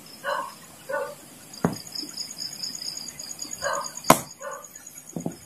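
Night insects, crickets, chirping steadily in a high, pulsing trill. Over them come a few short vocal sounds from a person and two sharp knocks, the second, about four seconds in, the loudest.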